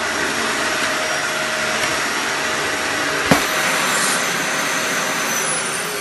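Dyson upright vacuum cleaner running steadily with a high motor whine as it is pushed over a hard laminate floor sucking up crumbs. There is one sharp knock a little past halfway.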